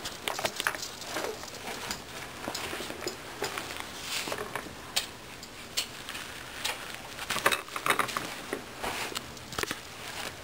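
Disposable diapers rustling and crinkling as a small child pulls them from a drawer and handles them, with scattered light taps and clicks. The crinkling comes in short irregular bursts, busiest about four seconds in and again near eight seconds.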